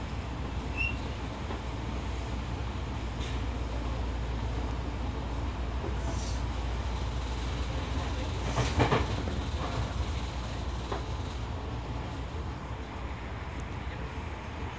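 Tokyo Metro 10000 series electric train running at speed, heard from inside the car: a steady low rumble of wheels on rail. A few wheel clacks over rail joints come through, the loudest run of them about nine seconds in.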